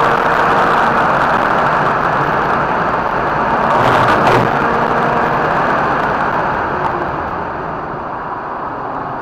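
Mazda RX-8's twin-rotor Wankel engine running at track speed, heard from inside the car under heavy wind and road noise. The sound eases off a little near the end.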